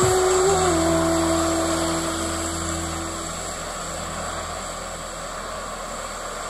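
Jet airliner engine noise, a steady rush, as a Boeing 737 touches down. Held notes of background music change pitch and fade out about three seconds in.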